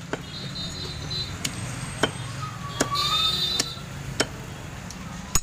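Butcher's knife chopping bone-in chicken pieces on a wooden block: about seven sharp, irregularly spaced chops, the last one loudest, over a steady background hum.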